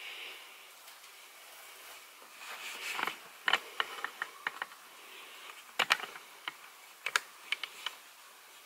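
A crinkled scarf being handled and spread over a mannequin: soft fabric rustling, with two runs of sharp clicks and crackles, the first about three seconds in and the second about six seconds in.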